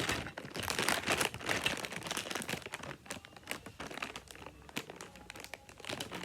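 Packaging crinkling and crackling as a box is torn open by hand, busy for the first few seconds, then sparser.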